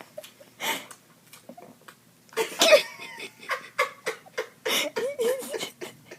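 A baby laughing in short bursts of breathy giggles, with a wavering squeal about five seconds in.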